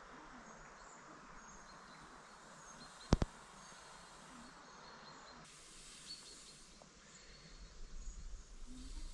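Quiet outdoor background with faint, short bird chirps. A sharp double click sounds about three seconds in, and a low rumble with soft bumps builds near the end.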